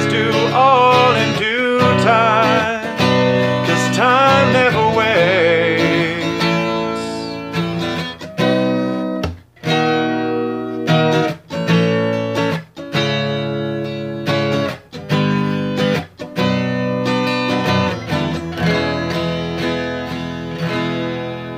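Acoustic guitar strummed in a steady rhythm through an instrumental break. A sung voice holds wavering notes over the chords for the first six or seven seconds, then the guitar plays alone.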